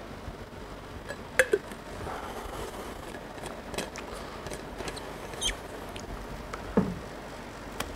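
Steady background hiss with scattered small clicks and taps. A couple of sharper clicks come about a second and a half in and again near seven seconds, each with a short falling squeak.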